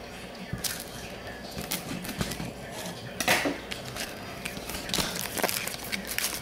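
Plastic shrink wrap crinkling and crackling as a sealed trading card box is unwrapped and handled: irregular clicks and rustles with no steady rhythm.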